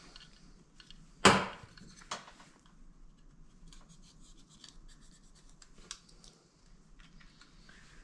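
Hand work on wiring: one sharp snap about a second in and a smaller click just after, then light clicks, scratching and rustling of wires and small hand tools.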